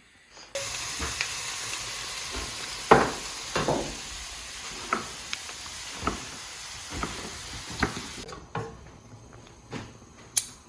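Food sizzling as it fries in a pan, a steady hiss with a number of sharp clinks and knocks from a utensil stirring it. The sizzle cuts off suddenly about eight seconds in, leaving a few faint knocks.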